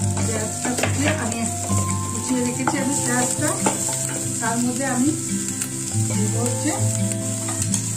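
Chopped onions sizzling in hot mustard oil in a wok as they are tipped in and stirred with a wooden spatula.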